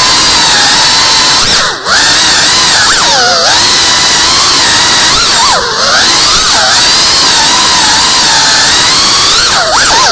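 FPV quadcopter's brushless motors whining. The pitch swoops up and down with the throttle, dropping sharply about two seconds in, again near six seconds and near the end.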